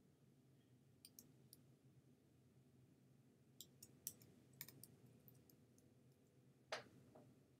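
Near silence with faint, scattered computer mouse clicks, some in quick runs of two or three, the loudest one near the end, over a low steady hum.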